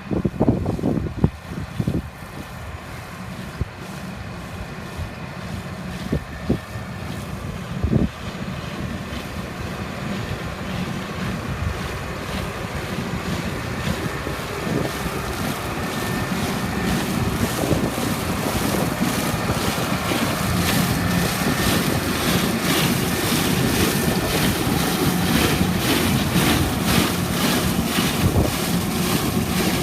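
Tractor engine working under load in a field, growing steadily louder as it draws nearer, with wind buffeting the microphone in sharp thumps during the first several seconds.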